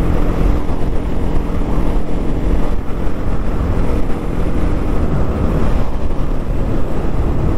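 Bajaj Pulsar NS200 single-cylinder engine running at a steady cruise, with wind rushing over the camera microphone.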